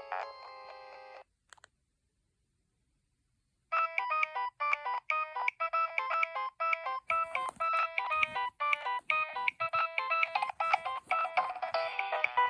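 Nokia 2112 mobile phone playing its preloaded ringtones through its own loudspeaker: one electronic tune cuts off about a second in, and after a gap of silence a new one starts near four seconds in, a run of quick, short beeping notes that plays on.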